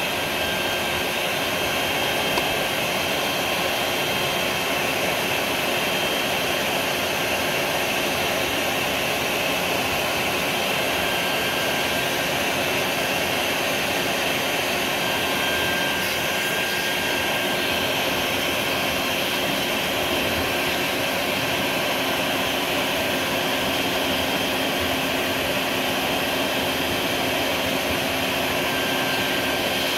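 Vacuum cleaner running steadily, its motor whining at a constant pitch over the even rush of air through the hose.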